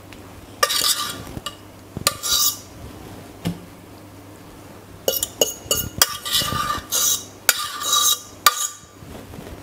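Metal fork scraping and clinking against a stainless steel pot with a slight metallic ring. There are a few scrapes in the first seconds, then a busier run of scrapes and clinks from about five seconds in until near the end.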